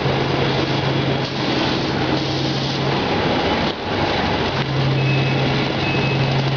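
Running machinery of an automatic bag-packing and palletizing line: loud, steady mechanical noise of conveyors and drives. A low hum drops out about three seconds in and comes back midway. A faint high beep repeats near the end.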